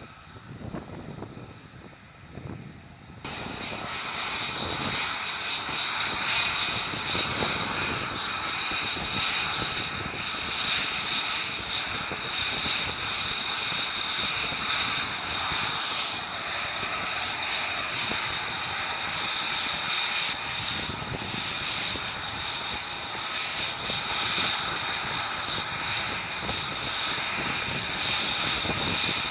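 F-35B Lightning II's F135 jet engine running loud and steady, a rushing noise with a high whine over it. It comes in suddenly about three seconds in, after a quieter start.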